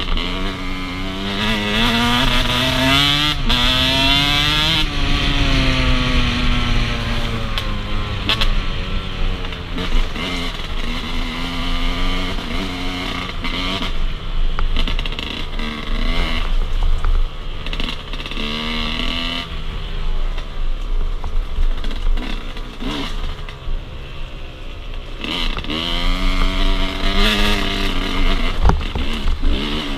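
Enduro motorcycle engine revving up and down repeatedly as it is ridden off-road, the pitch climbing and dropping every few seconds with throttle and gear changes.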